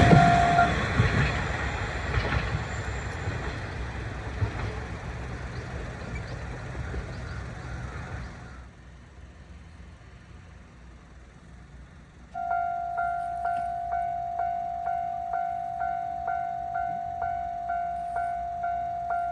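A train passes and its rumble fades away, with the crossing bell stopping just under a second in. About twelve seconds in, a Japanese railroad crossing's warning bell starts ringing steadily at about two strikes a second.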